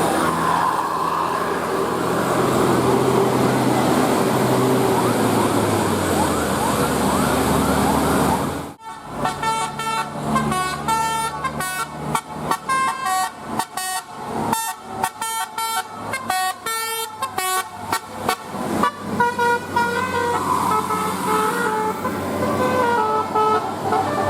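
A bus's telolet basuri multi-tone air horn playing a fast tune of short, choppy notes. It follows a dense, noisy stretch of vehicle and horn sound that cuts off suddenly about a third of the way in.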